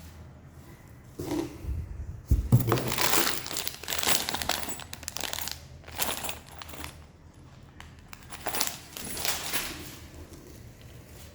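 Packaging being handled and unwrapped: plastic or paper crinkling and rustling in irregular bursts, with a knock about two seconds in.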